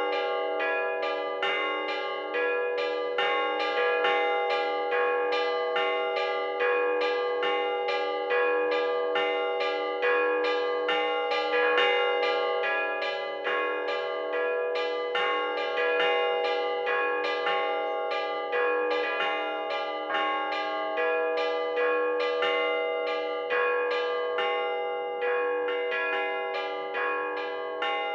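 Russian Orthodox bell ringing on the podzvonnye (middle-sized) bells: several bells struck in a steady repeating rhythm, their tones overlapping and ringing on between strikes.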